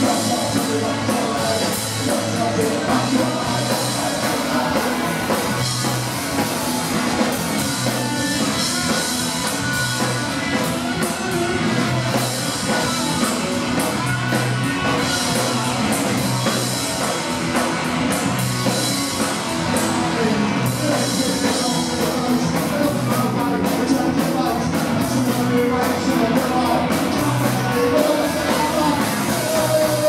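Live punk rock band playing at full volume: electric guitar and drums, with a singer's vocals over them.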